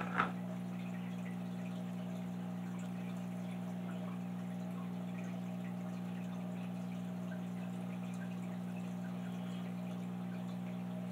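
Steady low electrical hum, with two quick knocks right at the start.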